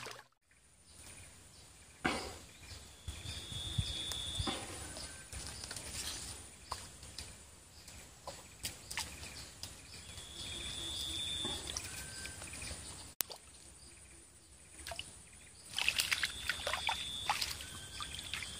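Outdoor swamp ambience: a high, steady call lasting about a second and a half recurs three times, roughly six seconds apart, over scattered light rustles, clicks and small sloshes.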